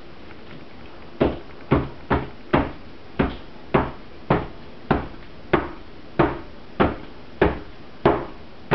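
A loaf mold full of freshly poured cold process soap batter being rapped down on a table, about fourteen thumps at roughly two a second, to settle the batter and bring up trapped air bubbles.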